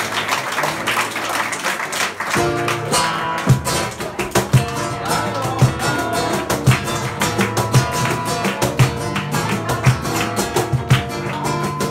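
Applause, then about two seconds in a flamenco acoustic guitar starts strumming, with many sharp rhythmic strokes.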